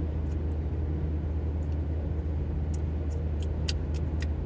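Steady low drone of a car on the move, heard from inside the cabin: road and engine noise, with a few faint clicks near the end.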